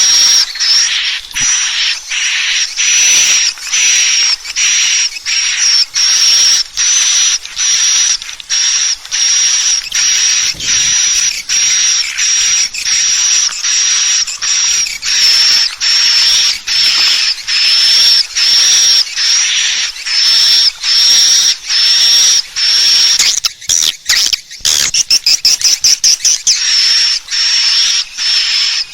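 Edible-nest swiftlet calls played as a swiftlet-house lure: a steady series of high, buzzy chirps, about one and a half a second. About three-quarters of the way in comes a quicker run of rapid clicks.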